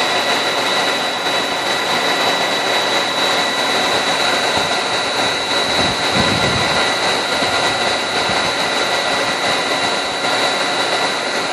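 Bee vacuum running steadily as it sucks live honey bees off the comb: rushing air with a steady high motor whine, and a brief lower rumble about halfway through.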